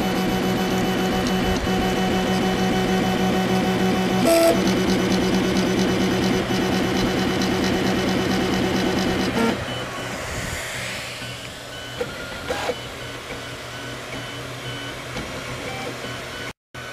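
Flsun i3 3D printer's stepper motors running during a print: a steady buzzing whine made of several pitched tones. About halfway through it gets quieter and changes pattern, with a brief rising and falling sweep and a couple of clicks.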